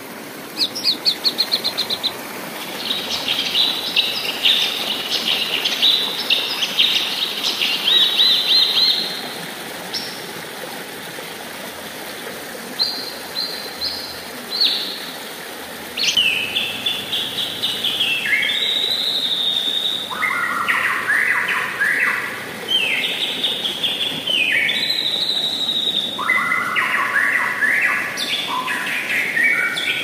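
Songbirds singing long, varied songs of chattering runs and quick downward-sweeping whistled phrases. Near the start there is a fast series of repeated notes, and there is a brief lull about ten seconds in. A steady rush of river water runs underneath.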